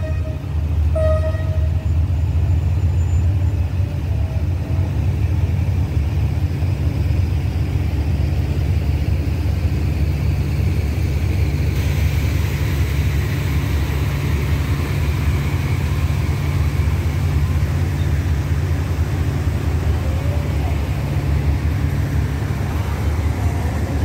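Diesel-hauled passenger train pulling out of the station, its coaches rolling past with a steady low diesel hum. A short horn toot sounds about a second in. Rushing wheel-on-rail noise builds from about halfway as the train gathers speed.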